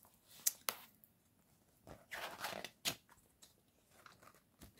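Soft handling noises of a ring-binder card album: two light clicks about half a second in, then a rustle as a page is turned around two seconds in, ending in a sharper click, with faint ticks after.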